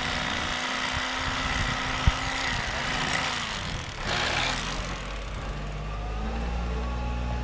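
Electric fillet knife running as its reciprocating blades cut through a bass fillet, a steady motor whine whose pitch dips briefly under load, switched off about four seconds in. In the last couple of seconds a low steady engine hum comes in.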